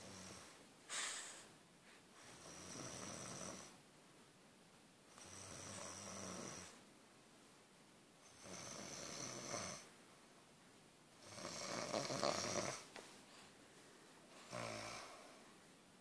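A sleeping person snoring: slow, even snores about every three seconds, each lasting a second or so, with a shorter, sharper one about a second in.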